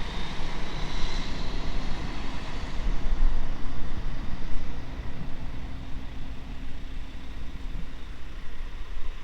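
Bus running on the road: a steady low rumble with a hiss of road noise.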